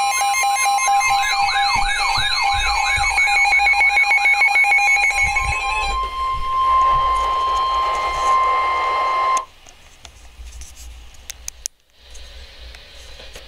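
Weather-alert alarms sounding together: a steady warning attention tone, with electronic beeping and a warbling siren-like alarm over it for the first six seconds or so. The warbling and beeping stop, the steady tone runs on alone, then it cuts off suddenly about nine and a half seconds in, leaving only low background noise and a few clicks. The tone signals that a severe thunderstorm warning is about to be read.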